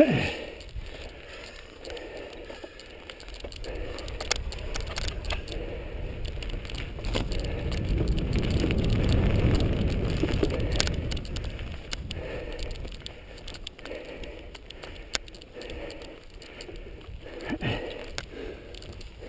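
Mountain bike riding over a dirt single-track: the bike rattles and clicks over the rough ground, over a low rumble that swells in the middle and fades again.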